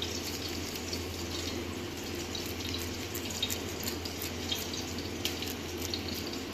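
Wet hands pressing and shaping raw chicken mince: many small, soft sticky clicks and squelches over a steady background hiss and low hum.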